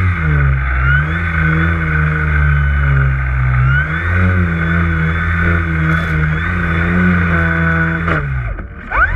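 Electric motor and propeller of a Multiplex FunCub model floatplane running as it taxis on the water, whining with several quick rises in pitch. Near the end it winds down briefly, then winds up steeply again.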